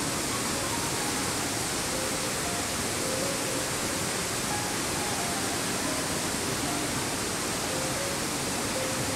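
Steady rush of falling water from an indoor garden waterfall, with a few faint short high notes scattered through it.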